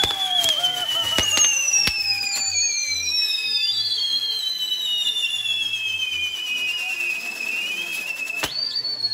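Whistling fireworks burning: several shrill whistles sound at once, each falling slowly in pitch over several seconds. Sharp pops and cracks come in a cluster in the first two seconds, and one more comes near the end.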